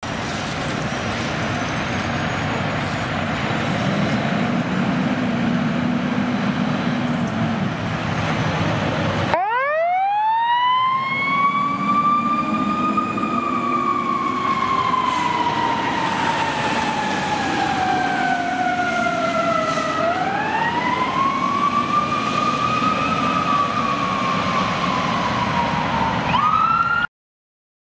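Fire truck engine and road noise, then after a cut a fire truck siren that winds up, slowly falls in pitch, winds up again, falls, and starts rising once more before cutting off suddenly.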